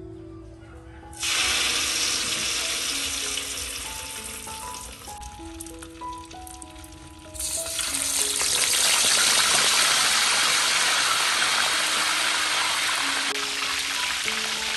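Hot oil in a large wok sizzling. It starts suddenly about a second in and slowly dies down, then flares up loud again as a whole fish is lowered into the oil, and stays as a strong, steady frying sizzle. Background music plays throughout.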